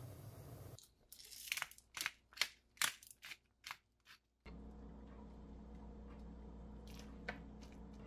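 Hand pepper grinder twisted over the pot: about nine short, gritty crunches over some three seconds. A steady low hum follows, with a couple of light clicks near the end.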